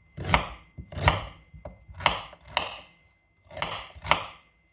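Kitchen knife chopping peeled ginger root: six separate cuts at an unhurried, uneven pace, about one every half second to a second.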